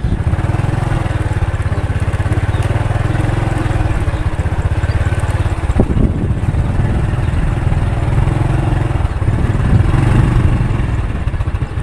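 Motorcycle engine running at low speed, a steady low putter, with a brief knock about six seconds in as it rides over the rough dirt road.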